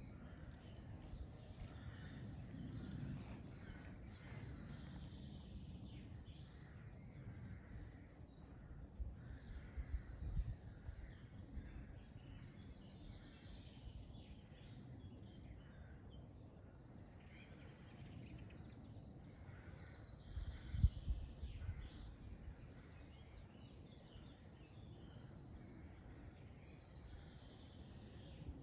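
Several woodland songbirds singing, overlapping short phrases and chirps, over a low rumbling background. Louder low thuds break in about ten seconds in and again about twenty-one seconds in.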